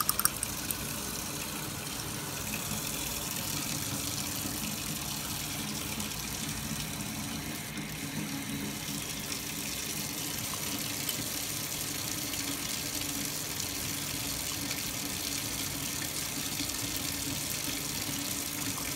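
Tap water running steadily into a lab sink through a water aspirator, drawing the vacuum for suction filtration through a Büchner funnel. A few light clicks in the first second.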